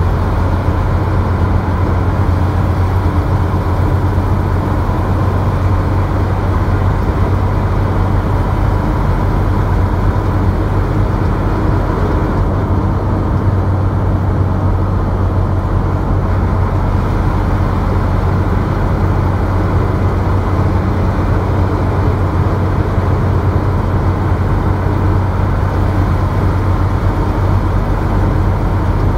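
Steady engine drone and tyre noise of a vehicle cruising on a highway, heard from inside the vehicle, with a strong constant low hum.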